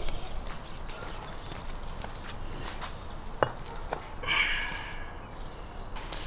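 A few light clicks and knocks as a wire grill basket is set against a wooden block over embers, with one sharper click about three and a half seconds in and a brief voice just after four seconds.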